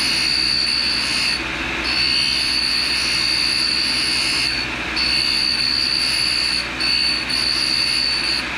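Tool and cutter grinder wheel running and grinding a dull high-speed steel single-lip countersink to resharpen its edge: a steady high whine over a hiss, which dips briefly about three times.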